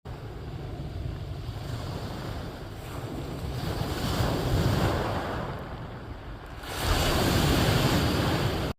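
Sea waves breaking and washing on the shore, one wave swelling about halfway through and a louder one near the end, with wind buffeting the microphone. The sound cuts off suddenly at the very end.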